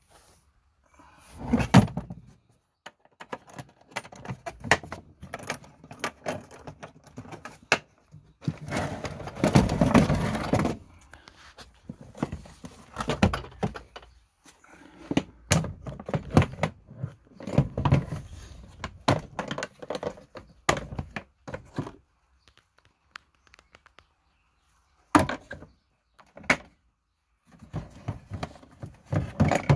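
Hard plastic tool cases and tools being handled and shifted about: irregular knocks, thunks and rattling clatter, with a longer dense stretch of handling about ten seconds in.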